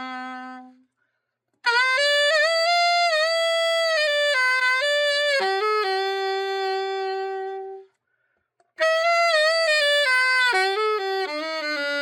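Selmer Super Action 80 Series II alto saxophone played solo: two slow melodic phrases with short breaths between them, each ending on a long held note, as a play-test of the fully overhauled horn.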